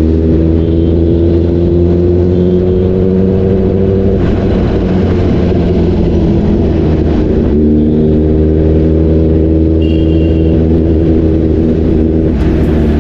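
Kawasaki ZX-10R inline-four engine pulling under way, its note climbing slowly. About four seconds in, a hiss washes over the note. A few seconds later the pitch drops and starts climbing again.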